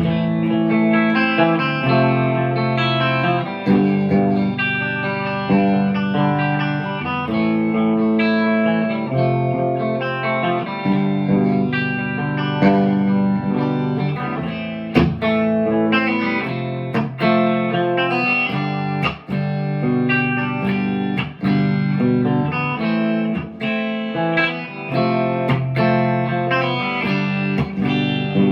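PRS McCarty 594 Hollowbody II electric guitar played through a Marshall DSL40C amplifier: chords and picked notes ringing out, with sharp pick attacks. It begins abruptly at the start.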